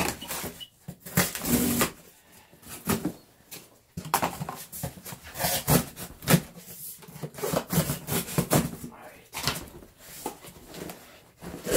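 Rustling, crinkling and scraping of plastic and foil wrapping against cardboard as gloved hands dig packaging out of a cardboard box, in irregular bursts of handling noise.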